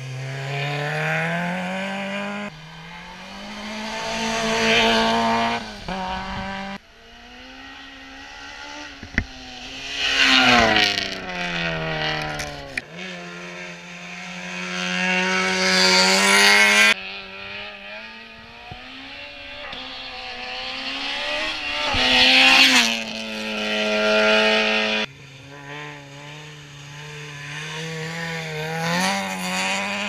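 Small four-cylinder French rally cars at full throttle, one after another. The engines rev hard, their pitch climbing through the gears and dropping when the driver lifts or brakes, and each grows loud as it passes, then fades. The sound cuts abruptly from one run to the next several times.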